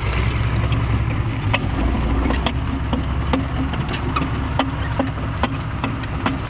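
T-34-85 tank's V-2 V12 diesel engine running steadily with a deep rumble, over a rattle of sharp metallic clicks about twice a second.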